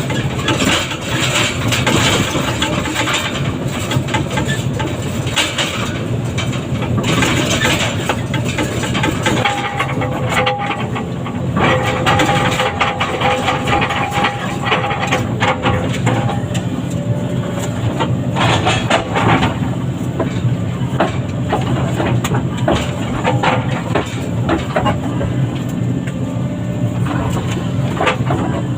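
Heavy diesel machinery running steadily under load, with repeated metallic clanks and knocks. A steady whine comes in about ten seconds in and fades a few seconds later.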